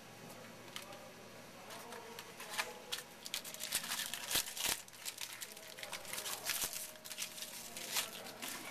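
Crinkling and tearing of a foil trading-card pack wrapper being ripped open by hand: a dense run of sharp crackles that starts about a second in and is thickest through the middle.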